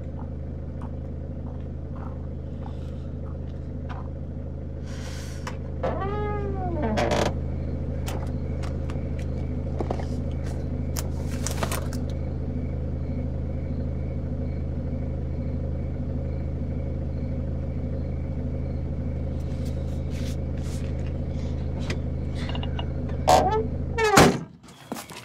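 Car engine idling steadily, heard from inside the cabin. A creak that falls and then rises in pitch comes about six seconds in and again near the end. Scattered clicks and knocks come from someone getting into the car.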